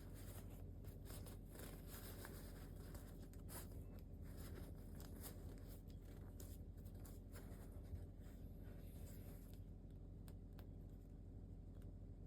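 Faint, irregular scratching and rustling of quilted jacket fabric being picked at with a sewing needle at a seam, over a low steady room hum.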